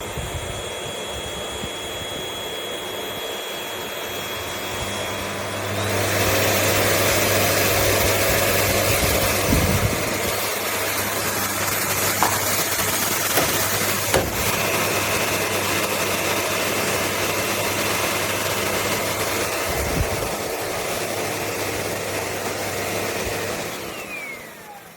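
Bagged canister vacuum cleaner motor running with a steady rushing whine, stepping up louder about six seconds in, then winding down near the end with a falling whine as it is switched off.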